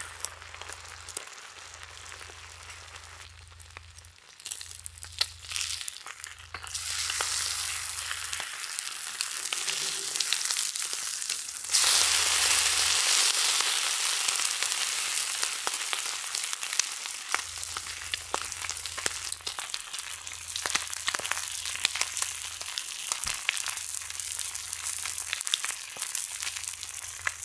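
Food frying in a pan, a steady sizzle with many small crackles and pops. The sizzle grows louder about seven seconds in and again about twelve seconds in.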